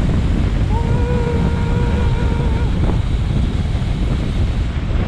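Wind buffeting the microphone of a bike-mounted camera while riding at speed, a heavy, steady rumble. About a second in, a steady pitched tone with overtones sounds for about two seconds.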